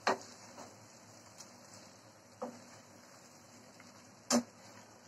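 Wooden spatula knocking and scraping against a non-stick pan as duck pieces are stirred in thick spice paste: three short knocks about two seconds apart over a faint steady background.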